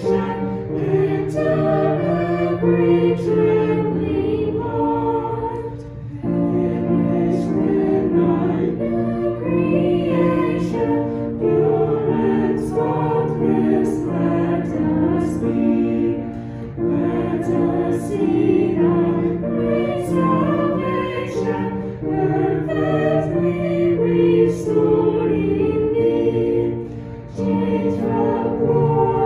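Choir singing in long held phrases, with a short break about every ten seconds.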